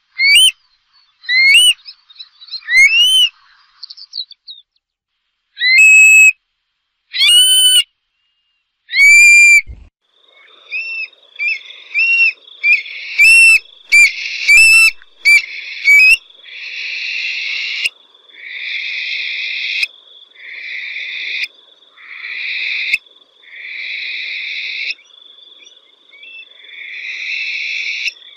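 Stone-curlew calling: shrill whistled notes that rise and fall, given one by one at first. About ten seconds in, a faint steady high tone sets in, and the calls become longer wailing phrases repeated every couple of seconds.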